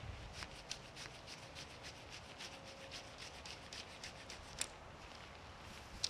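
Tent fabric and poles rubbing and rustling as the tent is put together, a string of small irregular clicks with one sharper click about four and a half seconds in.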